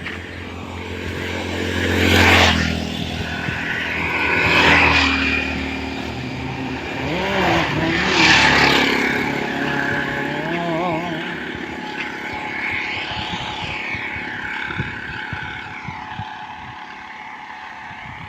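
Road vehicles passing close by one after another, each rising and fading: three loud passes a few seconds apart, then a fainter one.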